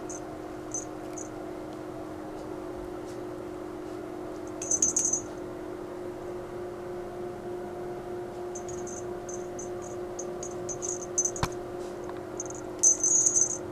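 A cat toy giving short, high-pitched rattling chirps in scattered runs, loudest near the end, over a steady background hum, with one sharp click about two-thirds of the way through.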